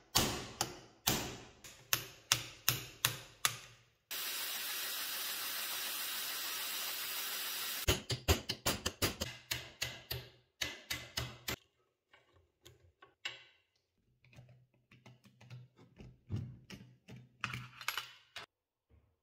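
Hammer blows on a steel punch, driving a part held in a bench vise on a cast-iron scale mechanism: quick runs of sharp metallic strikes, several a second. About four seconds in, a steady hiss takes over for some four seconds, then the strikes resume and thin out to scattered lighter taps.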